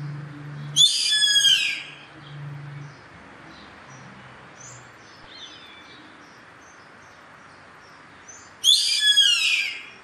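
Yellow-headed caracara calling twice, once about a second in and again near the end; each call lasts about a second and falls in pitch. Faint short chirps of small birds sound over a steady hiss between the calls.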